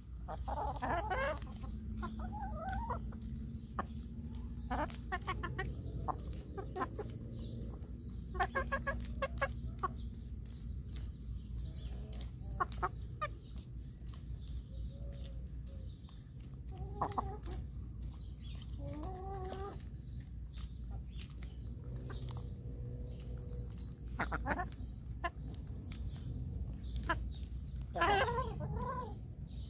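Hens clucking with scattered short calls while pecking kernels off a hand-held corn cob, their beaks tapping and clicking on the cob in quick irregular strokes.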